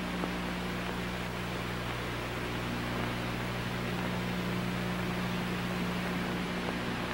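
Steady hiss with a low electrical hum underneath: the bare noise floor of an old television recording, with no programme sound.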